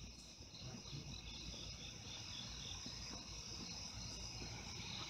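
Crickets chirping in a steady night chorus, a high pulsing trill. A faint irregular low rumble runs underneath.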